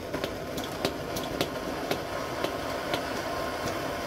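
1942 US military pocket gasoline stove burning with a steady rush from its pressurized burner just after lighting, with a scattered series of light clicks.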